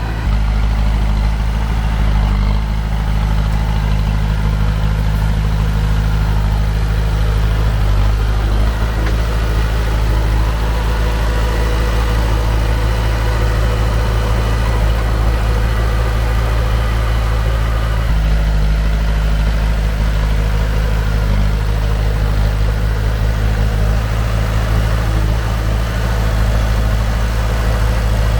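Heavy-machinery diesel engine running steadily with a low, even drone, its note shifting slightly a few times.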